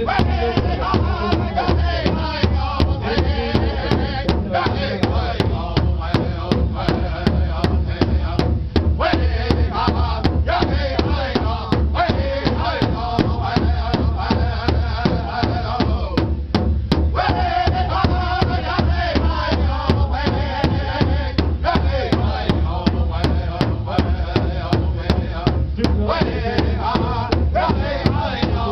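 Powwow drum group: several men striking one large shared drum with sticks in a steady, even beat while singing together over it.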